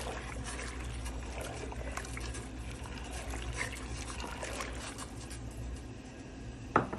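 Pot of water at a rolling boil with macaroni in it, bubbling steadily with small faint clicks. A sharp knock sounds just before the end.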